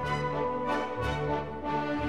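Orchestral background music, with held notes that change about once a second.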